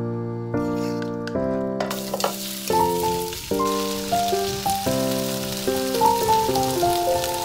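Chicken pieces frying in hot oil in a wok: a steady sizzle that starts suddenly about two seconds in, under piano background music.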